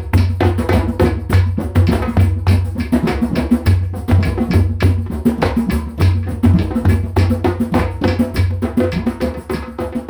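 Drum-driven music: many rapid drum hits over a steady low bass, starting to fade out near the end.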